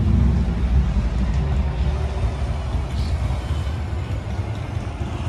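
A vehicle engine's low rumble from the street, slowly fading.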